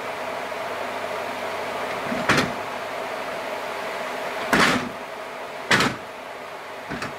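Heavy oak timber knocking against the steel bed of a chainsaw mill as the sawn beam is shifted by hand: four sharp knocks a second or so apart, the last one faint, over a steady background hum.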